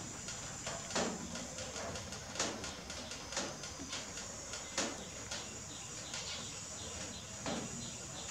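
A hand patting a wet baby monkey's back: soft short pats at irregular spacing, about one every second or so, over a steady background hiss.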